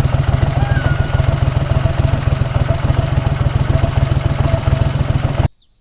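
Boat motor running steadily with a fast, even low pulse, then cutting off suddenly near the end.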